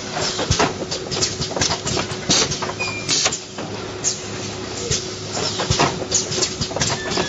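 Automatic LED tube-light assembly machine running, its pneumatic grippers and cylinders clacking and letting out short hisses of air at an irregular rhythm, several a second, over a steady machine hum.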